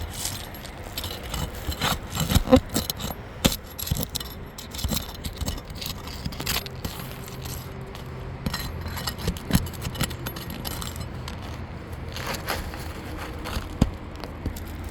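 Scattered scrapes, clicks and light clinks of asphalt shingles and metal tools being handled while a shingle is worked loose, with a faint low hum in the middle.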